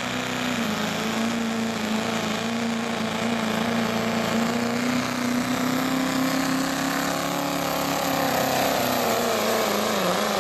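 Pro street diesel Chevrolet Silverado pickup pulling a sled, its engine held at high revs under heavy load in a steady drone. Near the end the engine note wavers and dips as the truck slows under the load.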